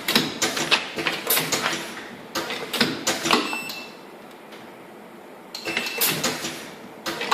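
Pneumatic pad printing machine cycling: quick mechanical clacks and air strokes as the pad and ink cup move, in two runs separated by a pause of about two seconds.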